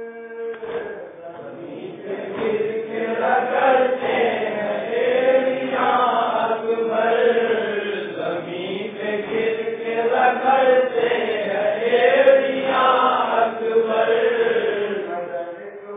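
A group of men chanting a noha, a Muharram lament, together in long phrases that rise and fall.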